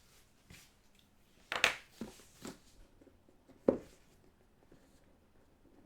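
Trading-card box and its packaging being handled: a few separate brushing scrapes and light taps, with one sharper dull knock a little past the middle.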